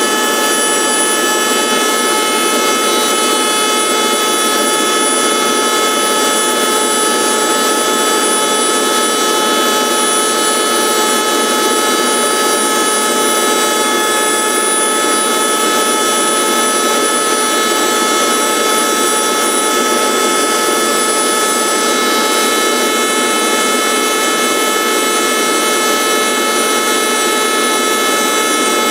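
High-speed cutter motor of a rose engine lathe whining steadily under a layer of noise as it runs through a cut in the wood.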